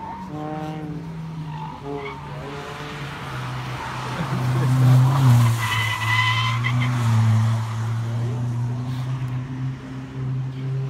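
Hatchback race car's engine running hard as it approaches and rounds a hairpin, loudest about five seconds in. Its tyres squeal briefly just after six seconds.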